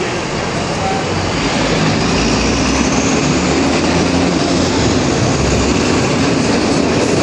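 A loud, steady rumble with a low drone underneath, growing louder about a second and a half in and then holding.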